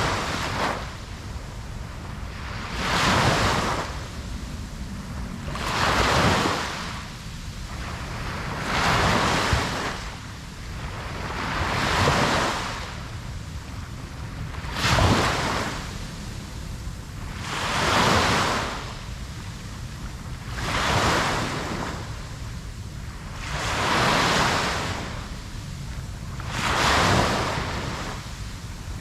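Ocean waves breaking and washing onto the shore in an even rhythm, one surge about every three seconds, over a steady low rumble of surf.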